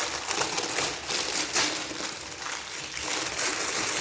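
Dense crackling and crinkling as a freshly baked, crisp-crusted loaf is handled.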